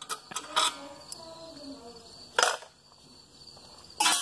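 Metal-on-metal handling noise from a 5 hp Briggs & Stratton flathead engine's cylinder head as its head bolts are worked out: a few separate short clinks and scrapes, the loudest near the end.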